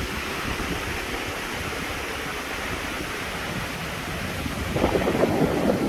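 Wind buffeting the microphone over a steady wash of sea surf on a beach, getting louder for the last second or so.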